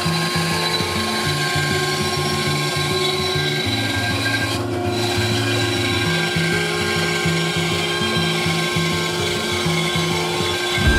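Bandsaw resawing a thick walnut board, the blade running steadily through the wood, mixed with background music that has a stepping bass line.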